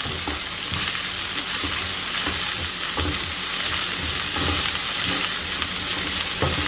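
Sliced onions sizzling in hot coconut oil in a non-stick pan, stirred with a spatula. Steady high sizzle, with a scrape of the spatula against the pan roughly every second.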